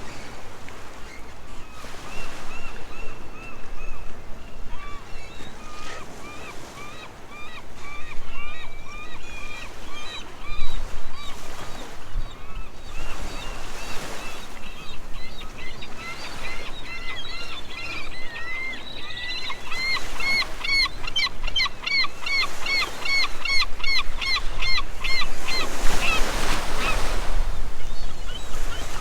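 A flock of waterbirds calling with short honking calls, scattered at first, then coming fast and crowded together over the last third. A steady wash of water runs beneath them and swells briefly near the end.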